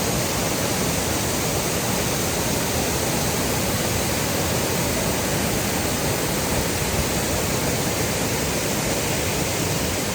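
Whitewater falls rushing: a loud, steady wash of water noise with no breaks.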